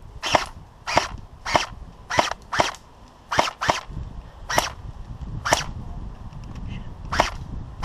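Airsoft rifle firing single shots, about ten sharp cracks at irregular intervals.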